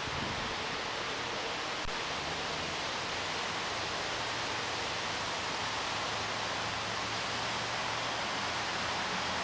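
Steady hiss of a breeze moving through large elephant ear (Colocasia esculenta) leaves, with a soft rustle of the leaves.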